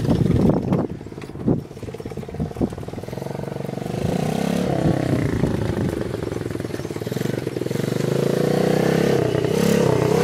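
110 cc pitbike's small single-cylinder four-stroke engine running and revving as it is ridden, its pitch rising and falling with the throttle. It drops back about a second in, then grows louder toward the end as the bike comes back toward the microphone.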